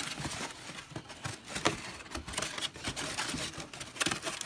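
Cardboard box and its white packing insert handled: irregular rustles, light scrapes and small knocks as the clock is worked out of the box, with the sharpest click about four seconds in.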